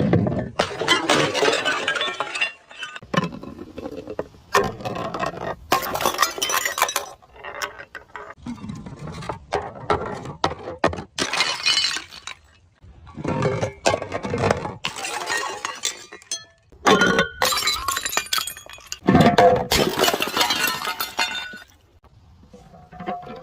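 Glass bottles shattering one after another, about nine breaks in all, each a sharp crash followed by the clinking and tinkling of shards.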